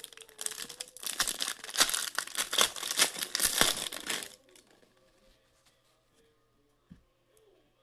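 Foil wrapper of an Upper Deck Premier hockey card pack being torn open and crinkled in the hands for about four seconds, then stopping; a single light tap follows near the end.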